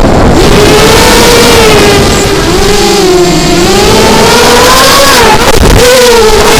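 Emax 2205 2300KV brushless motors of an Emax Nighthawk 200 racing quadcopter whining with 5045 props, the pitch falling and rising with the throttle, over loud wind rush on the onboard camera's microphone.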